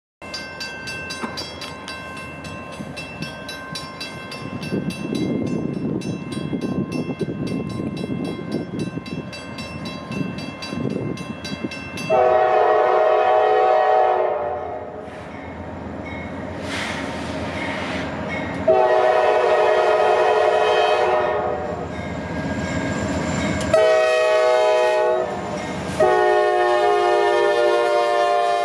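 Norfolk Southern GE AC44C6M diesel locomotive's air horn blowing the grade-crossing signal: two long blasts, a short one, then a long one, as the train approaches.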